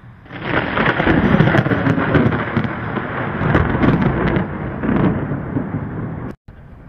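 Thunder: a clap that builds within half a second into a loud rolling rumble, swelling and ebbing several times for about six seconds, then cutting off suddenly near the end.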